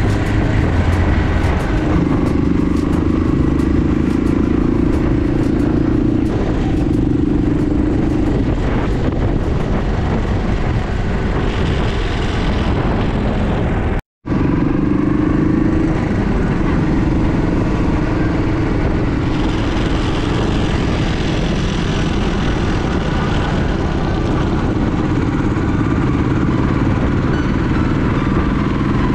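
Motor vehicle engine running steadily, cutting out for an instant about halfway through.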